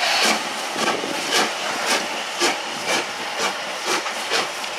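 LMS Jubilee class 4-6-0 steam locomotive 45690 Leander working slowly past, its three-cylinder exhaust chuffing in an even beat of about two a second over a steady hiss of steam.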